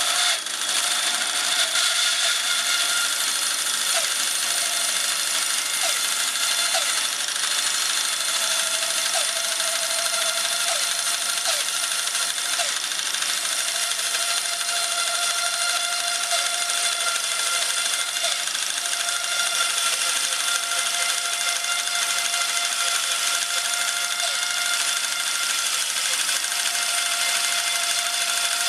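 Electric-motor horizontal band sawmill cutting through a fresh linden log: a steady whine from the running blade over a dense hiss of the cut and flying sawdust.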